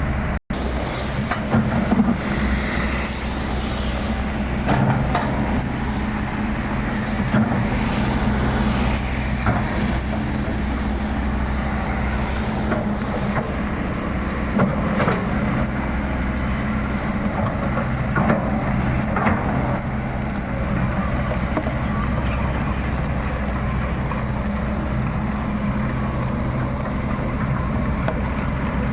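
Excavator's diesel engine running steadily under working load, with scattered cracks and knocks as it works at uprooting oil palm trees.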